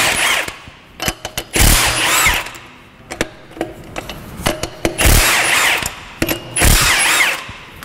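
Milwaukee Fuel cordless power tool undoing a 1981 MGB GT's 19 mm (3/4 in) rear hub nuts. It runs in short bursts of under a second, a few times over, with a whining motor pitch that rises and falls. Small metallic clicks of socket and nuts come between the bursts.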